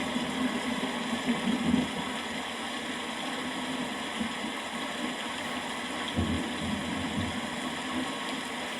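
Steady rain falling, with low rumbles of distant thunder swelling in the first couple of seconds and again around six to seven seconds in.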